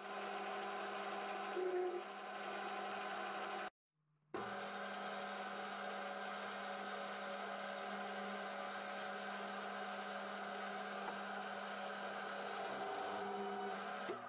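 Small metal lathe running steadily: a constant motor and gear-drive hum with several steady tones. It drops out completely for about half a second around four seconds in, then resumes unchanged.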